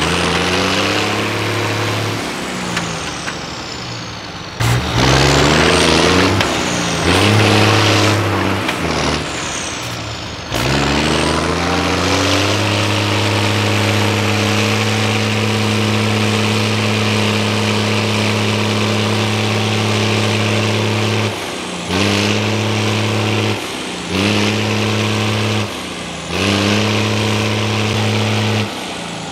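Truck-trial truck's diesel engine revving hard under load as it crawls through a deep mud trench, rising in pitch several times in the first ten seconds, then held at high revs for about ten seconds, then blipped in three short bursts near the end.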